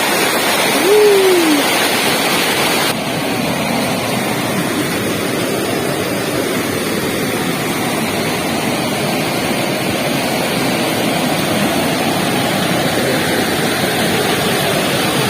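Waterfall's rushing water: a loud, steady rush of noise. A short "woo!" shout comes about a second in.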